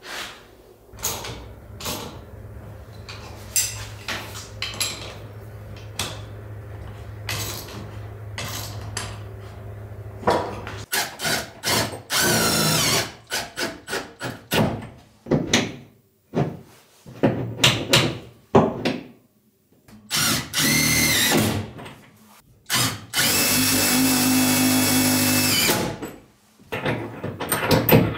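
Cordless drill/driver running in several short bursts, driving into a wall panel, the longest run lasting about three seconds near the end. Knocks and handling clatter fall between the runs, and a low steady hum with light tapping fills the first part.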